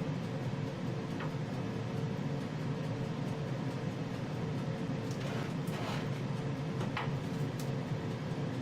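A steady low mechanical hum carrying a constant thin tone, with a few faint light clicks and rustles around the middle.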